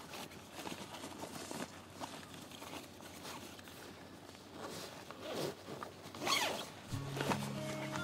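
Zipper being pulled open along a nylon carry bag, in several scratchy drags with the longest pull about six seconds in, amid fabric rustling. Background music comes in near the end.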